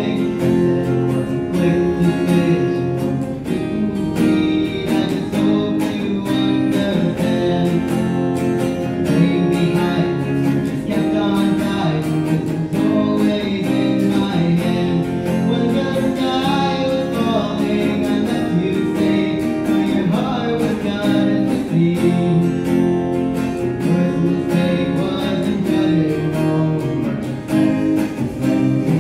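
Acoustic guitar strummed in a steady rhythm, played live as a song's accompaniment.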